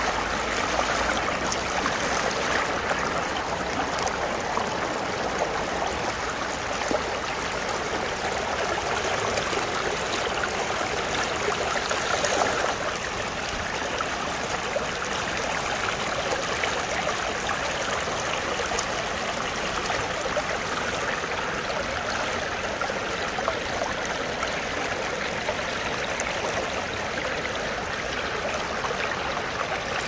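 Shallow mountain stream flowing over a rock bed, water rushing and splashing steadily through a small riffle close by.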